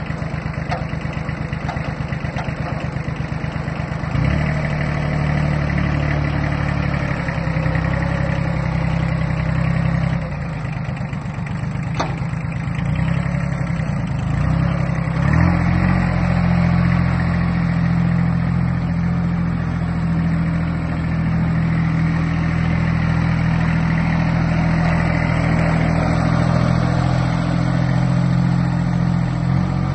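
Kubota B1402-M compact tractor's small diesel engine running as the tractor drives at low speed, the throttle stepping up about four seconds in, easing off briefly around ten seconds, and running harder again from about fifteen seconds on.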